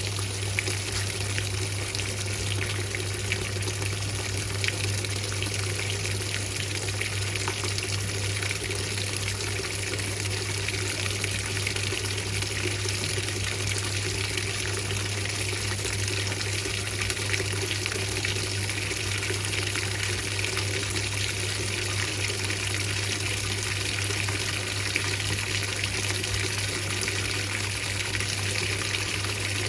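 Whirlpool 3RLSQ8033SWD top-loading washing machine filling with warm water: a steady rush of water pouring into the tub, with a steady low hum underneath.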